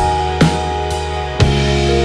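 Background music: drum-kit hits over held chords, with a strong hit about one and a half seconds in, after which the music carries on as sustained tones.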